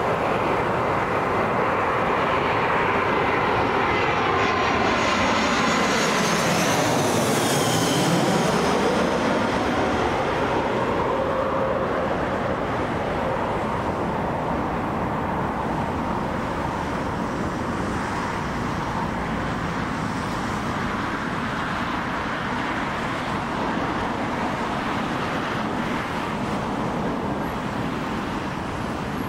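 Twin-engine Airbus A320-family jet airliner on final approach, its jet engines passing low overhead. The noise peaks with a high whine about seven seconds in, then runs on a little quieter as the aircraft descends away toward the runway.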